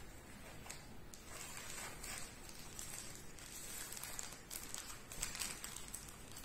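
Plastic courier mailer bag crinkling and crackling in the hands as it is pulled open, with irregular sharp rustles and a few louder crackles near the end.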